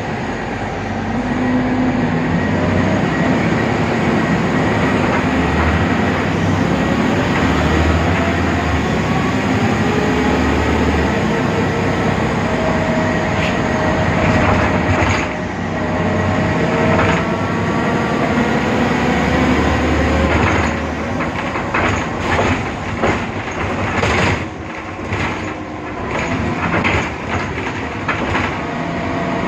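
BredaMenarini Avancity Plus city bus with a Deutz diesel running on the move: steady running and road noise with a whining tone that rises and falls. From about two-thirds through, many sharp rattles and knocks, and the overall level dips.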